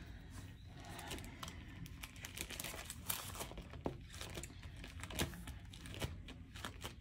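Quiet rustling and crinkling of paper planner pages and sticker sheets being handled, with scattered light taps and clicks.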